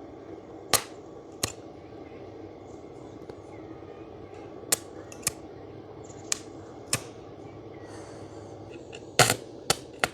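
Stick-welding arc struck again and again and failing to hold: about eight short, sharp cracks, the one near the end sputtering a little longer, over a steady machine hum. The welder's current is set too strong, in the welder's own judgement.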